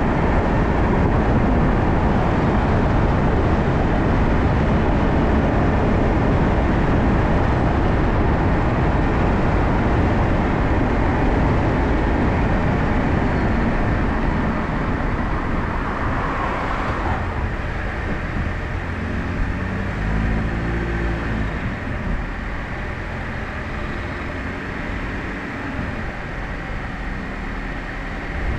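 Steady road, tyre and wind noise of a car being driven. The noise eases somewhat in the second half as the car slows, and a brief pitched hum swells and fades about twenty seconds in.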